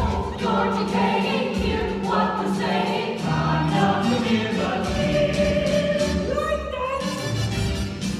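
Stage ensemble singing a show tune together in chorus over instrumental accompaniment with a steady beat.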